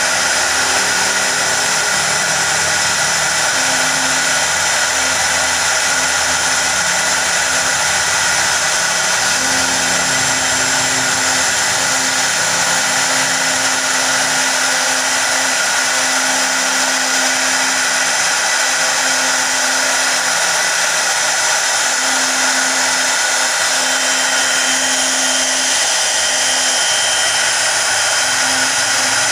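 CNC router spindle running at high speed with a pointed engraving bit cutting into a wooden panel. It gives a loud, steady high whine with hiss from the cutting.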